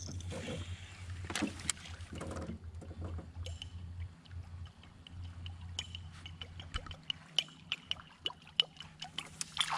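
Big Guy Baits flaptail musky topwater lure being retrieved across the water surface, its metal flap tail clanking in a fast, uneven run of sharp metallic clicks, starting a few seconds in. The clicks have a deep metallic sound.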